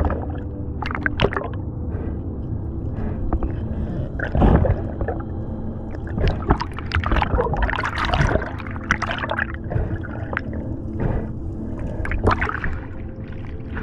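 Water gurgling and sloshing around a camera held underwater by a swimming freediver, with irregular splashes and bubbling, busiest in the middle.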